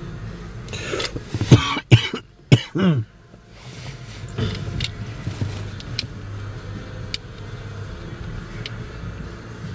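A person coughing several times in quick succession, about one to three seconds in, over a steady low hum.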